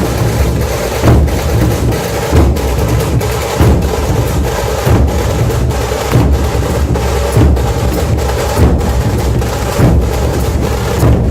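Puneri dhol tasha ensemble playing loudly: the big dhol barrel drums give a heavy low beat under a fast, dense rattle of tasha strokes, with a strong accented hit about every second and a quarter.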